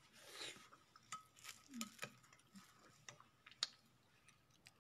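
Faint scattered clicks and ticks close to the microphone, with a short hiss just after the start and one sharper click a little past halfway.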